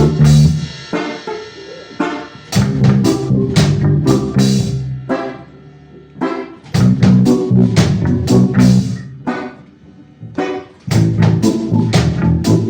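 Instrumental reggae played by a band: drum kit and guitar over a heavy bass line. The bass plays in phrases that start about every four seconds and drop out in between.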